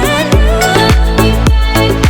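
Background music with a steady, fast dance beat: heavy bass and drum hits under a wavering vocal-like melody.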